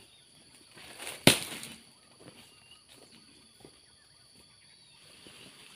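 A cut oil palm frond thrown down onto a heap of fronds: one sharp crashing rustle about a second in, fading within half a second. Light rustles of steps through the undergrowth follow, over a steady high insect hum.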